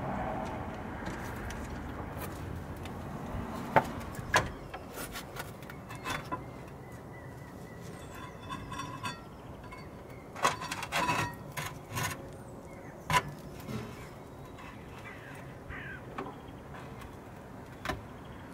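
Scattered metal clinks and knocks as a rusty rear brake caliper is worked loose and lifted off its disc, with some light rattling in the middle.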